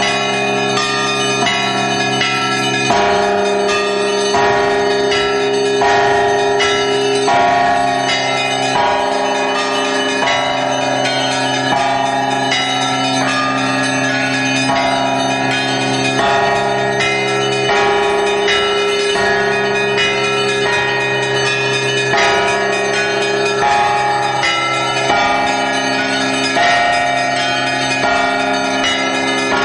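Russian Orthodox church bells rung from a belfry: the clappers of fixed bells are pulled by ropes, with quick strikes on the small bells over the long-ringing tones of the larger ones, in a continuous peal heard close up among the bells.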